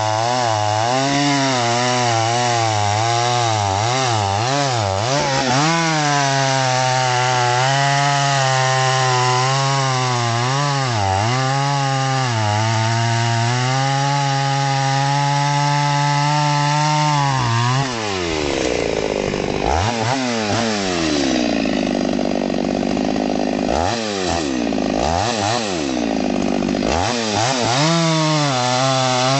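Solo by AL-KO 652 gasoline chainsaw's two-stroke engine running at high speed while cutting through a log, its pitch wavering as the chain loads and frees. About two-thirds of the way through the engine speed drops off and swings down and up several times, then it goes back to a high, steady pitch in the cut near the end.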